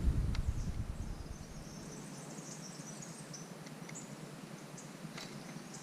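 Outdoor ambience: a low rumble fades out over the first two seconds, leaving faint, scattered high chirps and a couple of short clicks.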